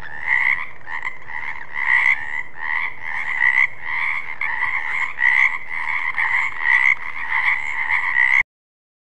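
Frog croaking, the calls repeating about twice a second with a steady pitch. It cuts off suddenly near the end.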